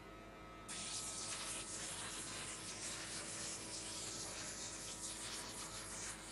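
Electric hair clipper cutting hair close to the microphone: a steady rasping hiss that starts suddenly about a second in, over a faint steady hum.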